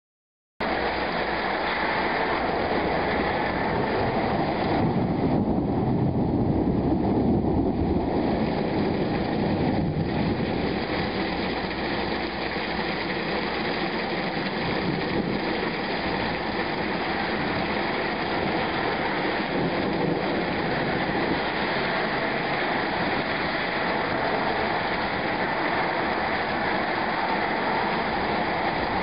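Thunderstorm noise: a steady rush with a low rolling rumble of thunder that swells about four seconds in and eases off by about ten seconds.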